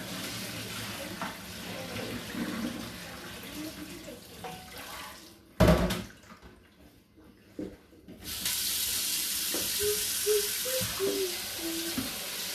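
Water pouring off a pot of boiled spaghetti through a plastic colander into a steel sink, with a single loud metal clunk about halfway through. A couple of seconds later the tap is turned on and runs steadily onto the pasta in the pot.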